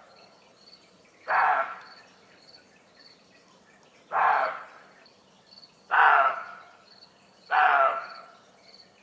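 Roe deer giving alarm barks: four short barks spaced one to three seconds apart.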